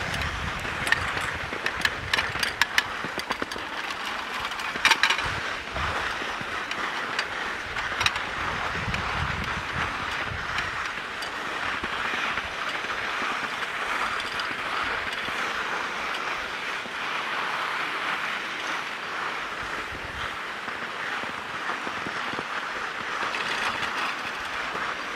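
Skis sliding over groomed snow while being towed up a platter lift: a steady hiss, with a few sharp clicks in the first eight seconds or so.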